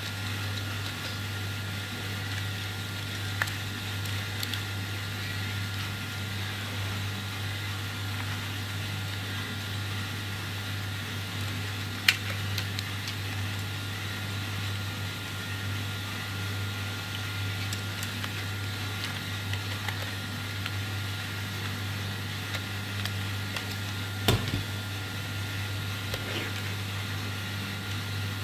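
Plastic RC toy excavator being handled, giving three sharp clicks, the loudest about twelve seconds in, over a steady low hum.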